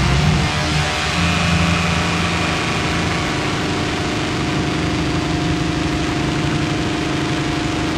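Live harsh noise music: a loud, dense wall of hiss and rumble with several steady droning tones held through it.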